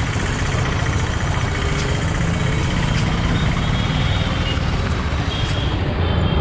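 Steady low rumble of a horse-drawn tonga rolling along a city street, its wheels and wooden frame running over the road, mixed with the noise of the surrounding motor traffic.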